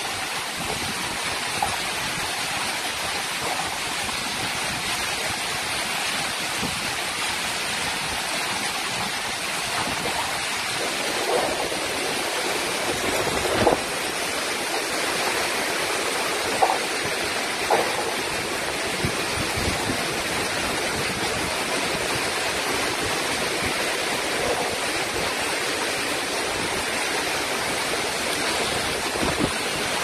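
Heavy storm rain and wind making a steady rushing noise, which grows fuller about a third of the way in, with a few sharp knocks around the middle.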